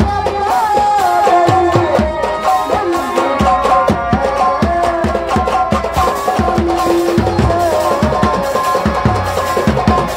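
Indian folk dance music for a nautanki stage show: quick, dense drum strokes under a melody line that slides up and down in pitch.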